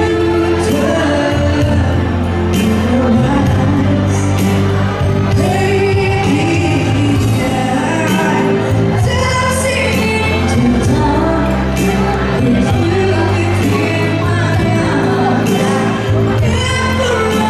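A pop song with a singing voice over sustained bass notes.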